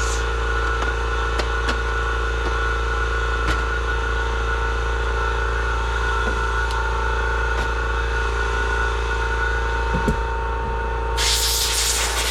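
Steady machine hum with a few light clicks; about eleven seconds in, a loud hiss of compressed air from a blow nozzle starts.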